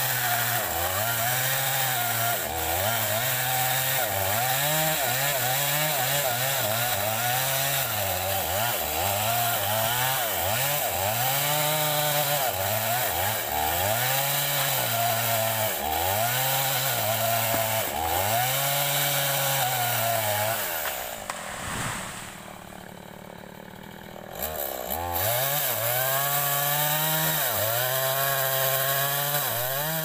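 Two-stroke chainsaw cutting into a large tree trunk, its engine pitch rising and falling about once a second as the saw works through the cut. About two-thirds of the way through it drops to a lower, quieter level for a few seconds, then revs back up and carries on cutting.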